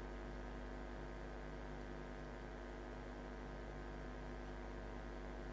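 Steady electrical mains hum: a low drone with a stack of even, unchanging tones above it.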